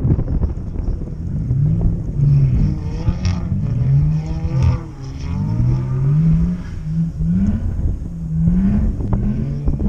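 Car engine revving up and down again and again, with its pitch rising and falling several times in a row.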